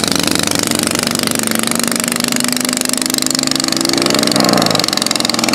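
Motorcycle engines running at low speed: one engine's tone climbs slowly in pitch over a couple of seconds, then turns rougher briefly a little after four seconds in, over a steady hiss.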